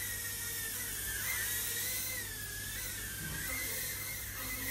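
FPV micro quadcopter's tiny motors whining in flight, the high pitch wavering up and down as the throttle changes.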